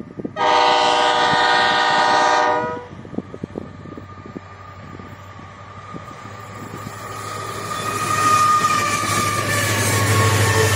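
A diesel freight locomotive's multi-tone horn sounds one long blast of about two seconds near the start. The locomotives' diesel engines then drone louder and louder as the train approaches and passes, with engine whine gliding slowly down in pitch.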